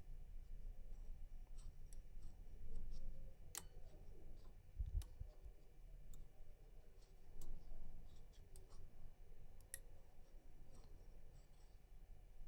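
Faint metallic clicks and small scrapes of a rotor pick working the pins inside a six-pin FAC lock cylinder, with a few sharper clicks scattered through.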